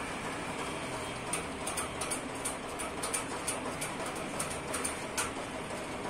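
Steady room hiss with faint, irregular clicking, a few clicks a second, starting about a second in.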